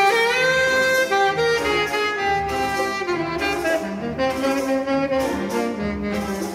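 Jazz tenor saxophone playing a lyrical melody over a chamber string orchestra, opening with a loud note that slides up in pitch.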